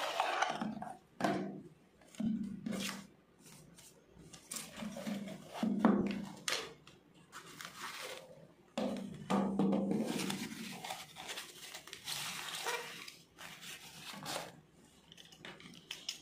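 Packaging handling noises: a cardboard box sliding and rustling, a paper or cloth wrapping crinkling, and light clicks and knocks as a hard glasses case and the frame are handled. The sounds come in irregular bursts of rustling with sharp clicks between them.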